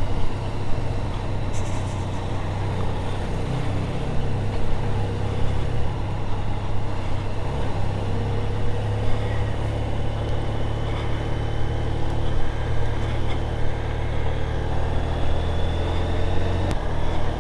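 Motorcycle engine running under way, heard from the bike itself: a steady low drone whose note shifts a few times in the first eight seconds or so, then holds.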